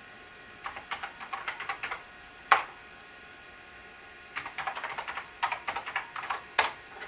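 Commodore 900 computer keyboard being typed on: a quick run of keystrokes, then a single louder key press about two and a half seconds in; a second run of keystrokes follows and ends in another loud key press near the end.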